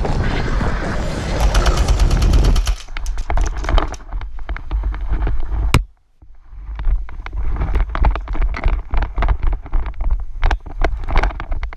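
Movement noise from a player's gear and footsteps: irregular clicks, knocks and rustling over a rumble of wind and handling on the microphone, with a brief near-silent break about six seconds in.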